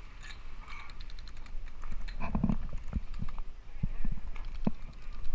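A run of sharp, irregular clicks with dull thumps among them, the thumps heaviest around the middle.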